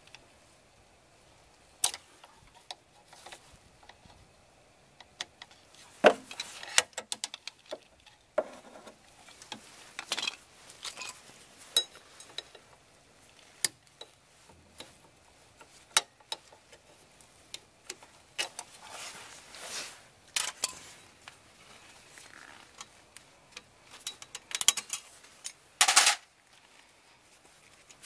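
Irregular metallic clicks, clinks and knocks of hand tools and parts being handled at a Suzuki Palette's rear wheel hub and drum-brake assembly. There are a few louder clanks and some short rustling noises.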